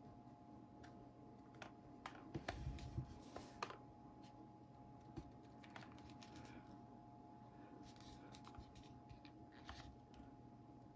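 Plastic body and folding arm of a DJI Osmo Mobile 3 smartphone gimbal being handled: faint scattered clicks and rubbing, with a short run of louder knocks and rustling about two to three and a half seconds in.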